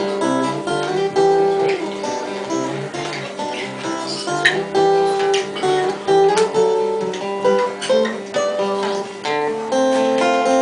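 Acoustic guitar playing an instrumental break, picked melody notes over chords.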